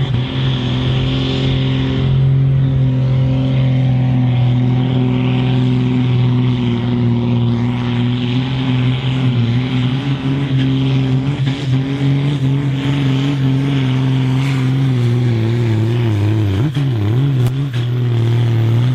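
Ford pulling tractor's diesel engine running flat out under full load as it drags the weight-transfer sled, a steady heavy drone. About three seconds from the end the revs sag and waver as the sled's growing load pulls the engine down.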